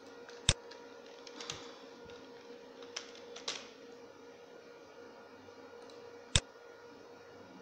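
Typing on a computer keyboard: a few soft keystrokes, with two sharper, louder clicks, one about half a second in and one near the end, over a faint steady hum.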